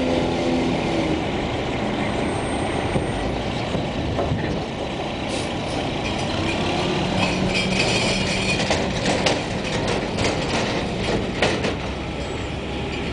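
Old Freightliner roll-off truck with its diesel engine running while the hook-lift hoist drags a loaded steel dumpster up onto the bed. From about five seconds in, repeated metal clanks and scrapes from the container sliding and rolling up the truck's rails.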